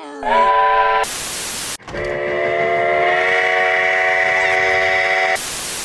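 Sierra Railway #28's steam locomotive whistle blows a short blast, then a burst of TV-static hiss. It then sounds a longer steady blast of about three and a half seconds, which is cut off by another burst of static hiss.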